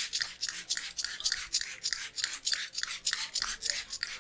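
Hands rubbing fast over hair and scalp in a head massage: a crisp, hissy rustle repeated about six times a second at an even pace.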